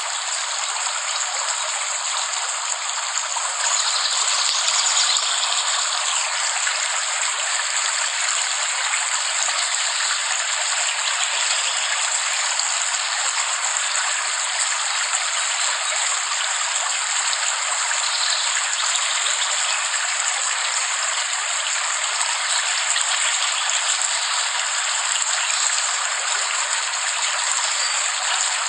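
Steady rain, an even hiss with no separate drops standing out, growing slightly louder about four seconds in.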